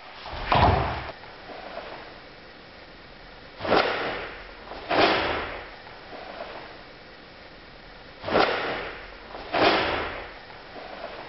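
Karate gi snapping with sharp swishes as punches and blocks are thrown, four of them in two pairs, after a heavier thud about half a second in.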